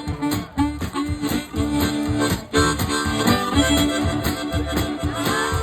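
Harmonica repeating a held note over guitar and a steady beat: the instrumental lead-in to a country-style fishing song.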